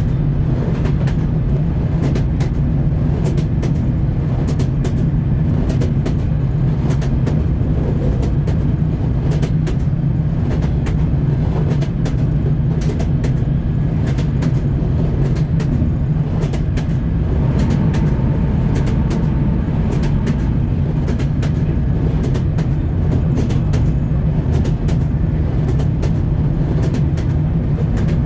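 Train wheels clacking over rail joints, many sharp clicks in irregular groups, over a steady low rumble of the moving train.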